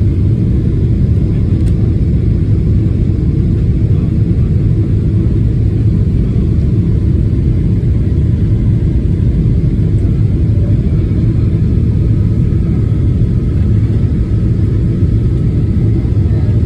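Boeing 777-200 cabin noise from a window seat during the climb after takeoff: a loud, steady low rumble of the jet engines and rushing air.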